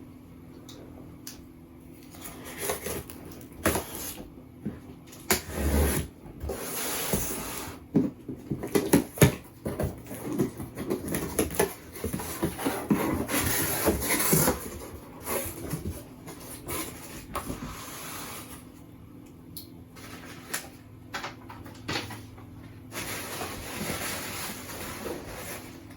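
Irregular rustling, scraping and sharp knocks of packaging and boxes being handled and opened, busiest in the first half and thinning out later.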